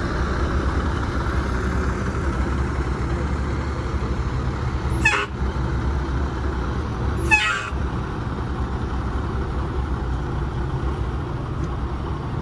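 School bus engine idling steadily with a low rumble. Two short sharp sounds cut through it, a little under halfway in and again about two seconds later.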